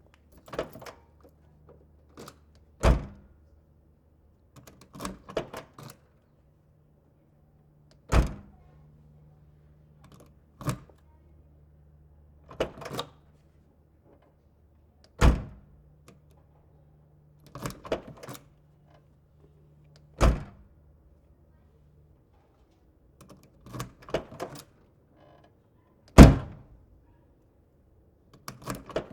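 Car door being shut again and again: five solid closing thunks about every five to six seconds, with lighter clicks and clunks between them.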